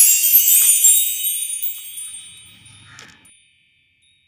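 High, twinkling chime tones ringing out and fading away over about three seconds, with a few light ticks in the first second.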